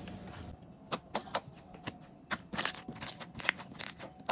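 Hands squeezing and stretching a soft, putty-like dough, giving irregular sticky clicks and pops, several a second at times.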